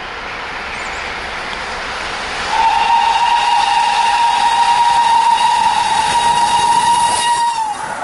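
Steam locomotive whistle blown in one long, steady single-pitched blast starting about two and a half seconds in, dipping slightly in pitch as it cuts off near the end. Under it, the rising rush of the approaching steam train.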